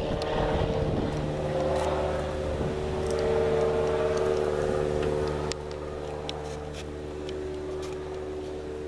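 An engine running steadily, a constant hum with a few faint clicks; the level drops a little about five and a half seconds in.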